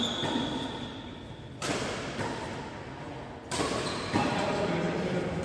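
Badminton rackets hitting a shuttlecock: sharp cracks about a second and a half to two seconds apart, echoing in a large hall.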